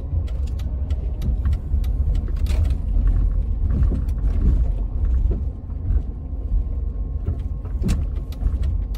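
Steady low rumble of a minivan driving, heard from inside the cabin, with scattered small clicks and rattles.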